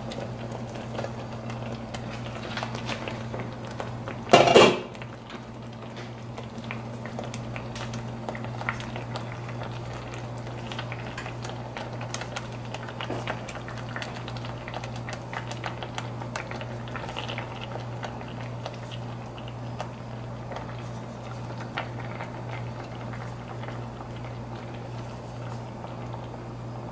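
Broth bubbling at a boil in a stainless steel skillet, with many small crackles over a steady low hum. About four and a half seconds in, the glass pan lid gives one loud clank; after that come soft taps and splashes as whole butterfish are laid into the simmering liquid.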